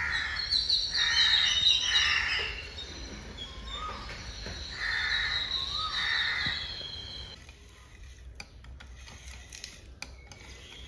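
Birds calling: a series of separate calls about a second apart through the first seven seconds or so, then only faint scattered clicks.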